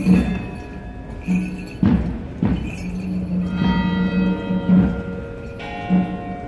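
Church bell tolling, with slow brass band music underneath and two heavy drum beats about two seconds in.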